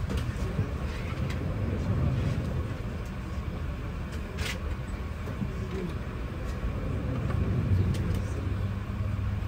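Boeing 777-300ER cabin ambience: a steady low rumble with faint voices in the background and a sharp click about halfway through.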